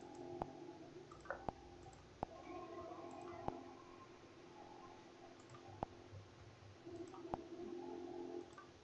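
A computer mouse clicking, single sharp clicks at irregular intervals, about seven in all, as menu items are picked in the drawing app.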